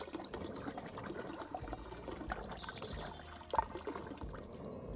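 Vinegar trickling in a thin stream from a plastic bottle into a large aluminium pot half full of water, with one short sharp sound about three and a half seconds in.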